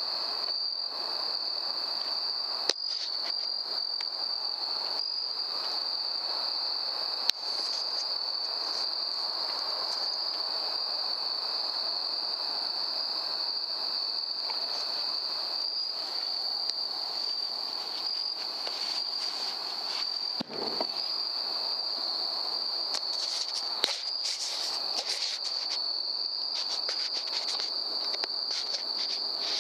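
Night insects, crickets, trilling as one steady high-pitched tone, with a few sharp knocks and some rustling in the last few seconds.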